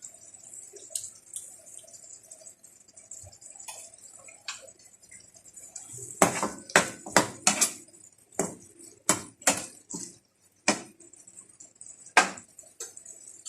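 A metal cooking utensil knocking and clinking against a pan, about a dozen sharp strikes in the second half, over a faint steady hiss of the adobo simmering.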